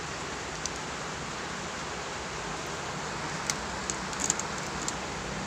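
Aluminium llanera molds clicking against a metal steamer tray as they are set in place: one light click about a second in, then a quick cluster of sharper clinks near the end. A steady hiss runs underneath.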